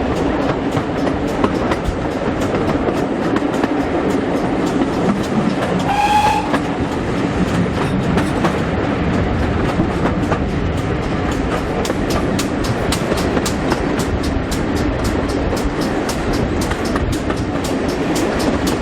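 Steam train running, heard from aboard the carriages: a steady rumble of wheels on track with an even run of sharp beats from about eight seconds in, and a brief high tone about six seconds in.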